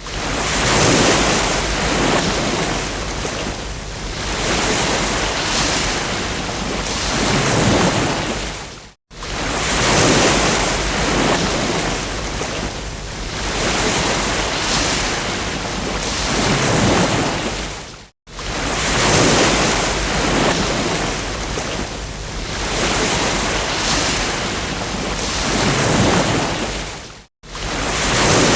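Ocean surf breaking on a beach, swelling and easing every few seconds. The track drops out to silence for a split second three times, about nine seconds apart, where the looped recording restarts.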